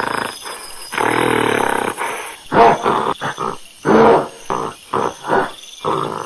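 A monkey calling: one long call, then a run of short, loud calls with brief pauses between them.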